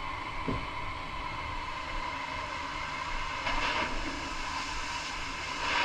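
Steady mechanical noise of a running engine, with faint voices in the background.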